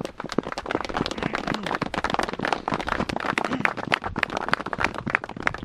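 Small crowd applauding: a dense patter of hand claps that starts suddenly.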